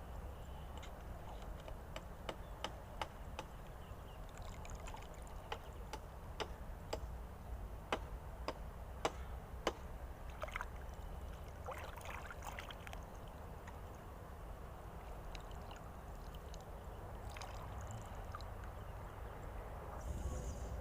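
Water trickling and splashing with many scattered sharp clicks and taps, thickest in the first half, over a steady low rumble.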